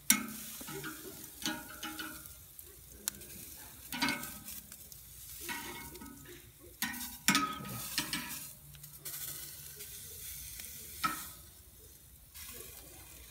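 Pork chops sizzling on the grate of a hot Primo Oval XL grill at about 450 degrees, with irregular clicks and scrapes of a utensil against the grate and the meat.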